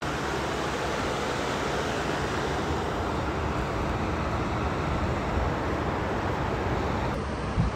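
Steady rushing background noise with no distinct tones, and a light knock near the end.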